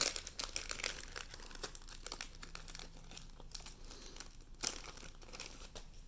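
Foil Pokémon booster pack wrapper crinkling and cards rustling as they are handled, with one louder crackle about four and a half seconds in.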